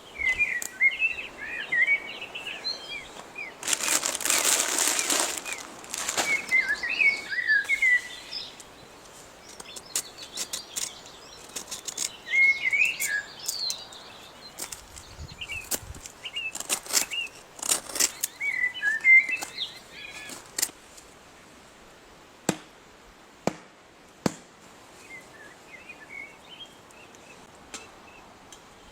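Small birds chirping in short, scattered twittering phrases, with a two-second rustling burst about four seconds in and a run of sharp clicks and knocks in the middle.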